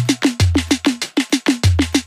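Background music: a drum-led beat with fast, steady percussion hits and a deep bass line underneath.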